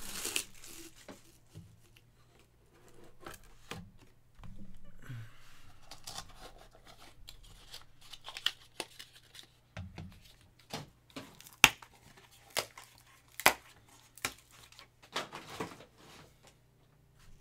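Plastic shrink wrap being torn and crinkled off a cardboard trading-card hobby box. This is followed by a string of sharp clicks and knocks as the box is opened and handled, the loudest a little past the middle.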